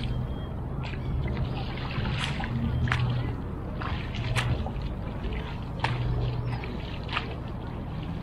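Oars of an inflatable rowing boat dipping and splashing in calm water, a sharp splash every second or so as the blades catch and leave the water, over a steady wash of background noise. A low hum comes and goes underneath.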